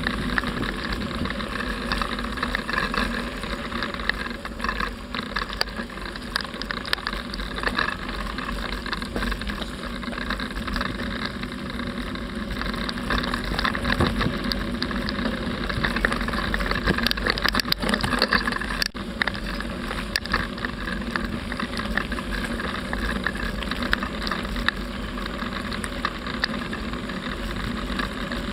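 Steady wind rush and rolling noise of a moving bicycle on a handheld camera's microphone, with a deep rumble from the wind on the mic.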